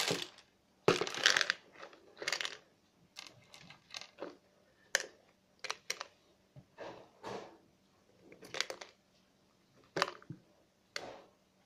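A dozen or so short, uneven rustles and clicks close to the microphone, as things are handled right beside the phone, with quiet gaps between them.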